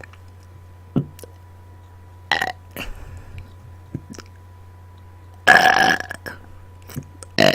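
A person burping on command: short burps about two and three seconds in, a loud belch lasting about half a second about five and a half seconds in, and another loud one starting right at the end.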